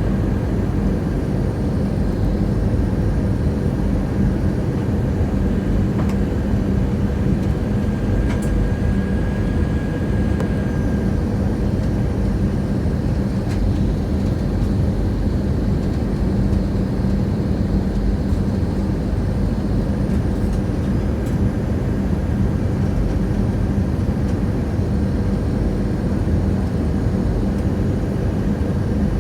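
Airplane cabin noise in flight: a steady drone of engines and rushing air with a constant low hum.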